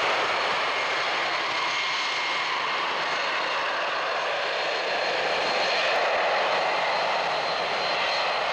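Jet engines of a widebody twin-jet cargo plane at takeoff thrust during the takeoff roll: a steady, loud rush of jet noise with a faint high whine on top.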